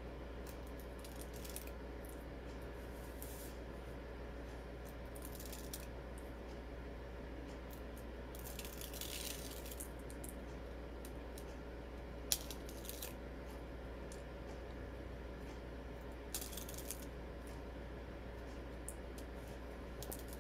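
Scattered short scratchy rustles of release-paper backing being peeled off foam adhesive strips, with one sharp tap a little past halfway, over a steady low hum.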